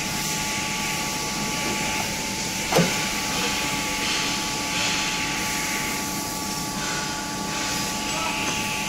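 Steady machinery hum and hiss of a metal-working shop floor, with a faint steady whine through it. A single sharp knock, falling quickly in pitch, comes about three seconds in.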